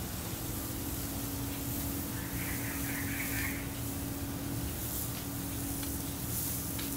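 Steady rushing noise of running water beside a pool, with a steady low hum underneath and a brief higher-pitched chirping patch about two and a half seconds in.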